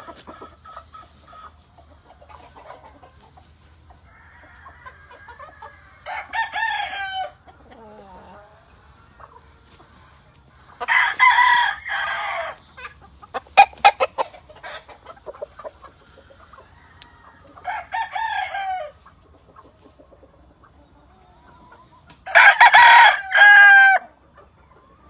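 Gamefowl roosters crowing four times, each crow lasting one to two seconds, with quieter clucking and chick peeping between the crows and a few sharp clicks about halfway through.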